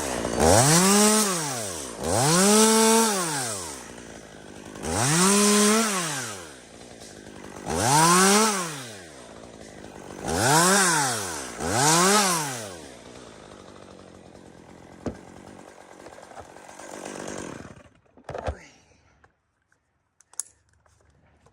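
Two-stroke chainsaw revving up to full throttle and back down six times in quick succession, then running at a lower, steady speed and shutting off about 18 seconds in.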